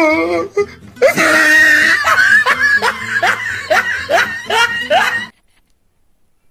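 Loud laughter: a wavering giggle, then a quick run of rising whoops about two a second, which cuts off suddenly a little over five seconds in.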